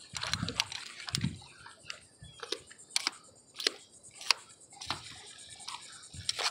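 Irregular sharp metallic clicks and clinks, about a dozen, from a steel tool with toothed jaws being handled, with a few dull knocks in the first second and a half.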